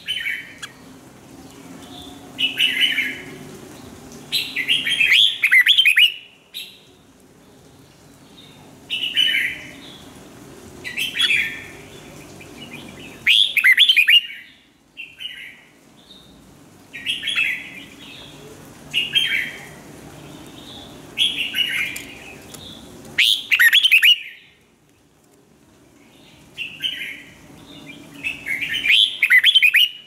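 Red-whiskered bulbul singing: short, rich warbled phrases repeated about every two seconds, some longer and louder than others.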